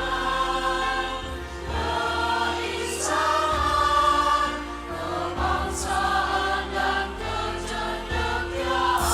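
Teachers' choir singing long-held notes together, with musical accompaniment.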